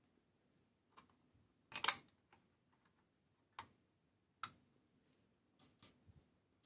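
Small scattered clicks and taps as the pieces of a 1:24 scale diecast model kit are handled and fitted, with a quick cluster of louder clacks about two seconds in.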